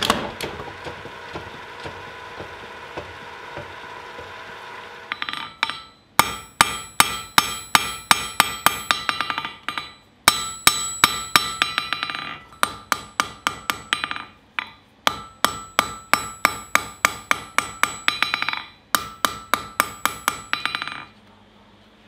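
A steady hum, then a hand hammer striking a red-hot steel bar on an anvil in four quick runs of blows, about three a second, each blow ringing. The hammering starts about five seconds in and stops shortly before the end.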